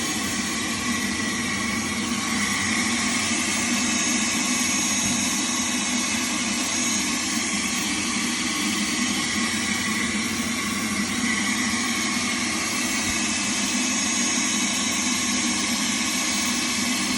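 Shop vac running steadily, its hose sucking the air out of a foam cushion sealed in plastic film to compress it.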